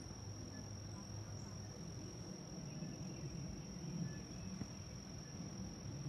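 Steady high-pitched drone of insects singing, over a low, uneven rumble.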